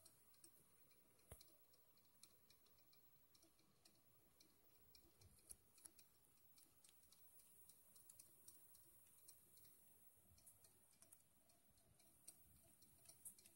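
Near silence: faint hiss with scattered, irregular small clicks.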